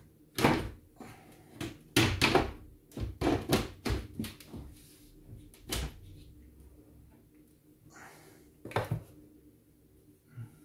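Knocks, clatters and scraping as the dark panel of a wood-framed PC case is handled and fitted back into place, in irregular clusters, the loudest in the first few seconds and another about nine seconds in.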